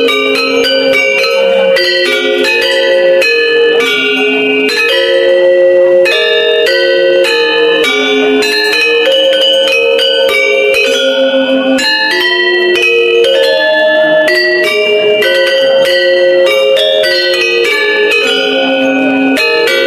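Balinese gender wayang ensemble of bronze-keyed metallophones playing, with a fast, unbroken stream of struck notes layered over each other.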